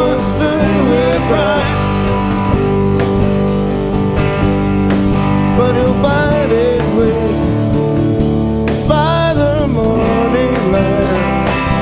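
Rock band playing live: electric and acoustic guitars, bass and drums, with a man singing lead.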